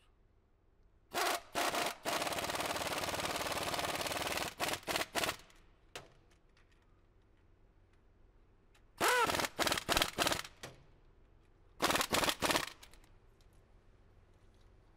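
Pneumatic impact gun running in bell housing bolts. First a few short bursts, then a run of about two and a half seconds, then two more clusters of short bursts later on.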